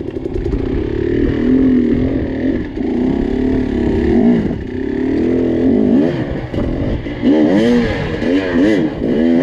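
A 250 hard enduro dirt bike engine working on a steep rock climb, its pitch rising and falling under load, then from about six seconds in blipped in a run of quick short revs.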